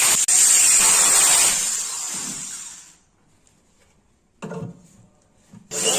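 Power drill driving screws to fit a hinge. It runs steadily, winds down and stops about three seconds in, and starts again near the end, with a short knock or scrape in the quiet gap.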